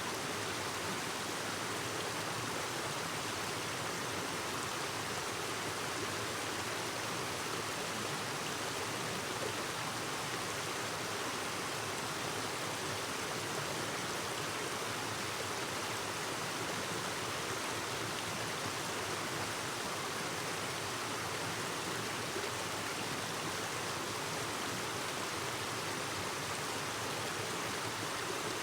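Clear river babbling: a steady, even rush of flowing water.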